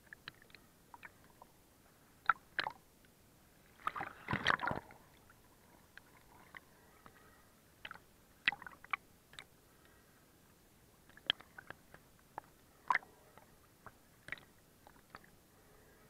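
Small waves sloshing and splashing against a camera dipping in and out of the sea surface: irregular short clicks and splashes, with a longer, louder splash about four seconds in.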